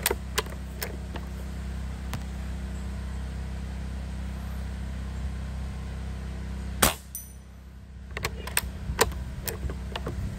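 A single shot from an Umarex Gauntlet .22 PCP air rifle about seven seconds in, the loudest sound here. A few sharp clicks come near the start and a quick run of clicks follows the shot, over a steady low rumble of wind on the microphone.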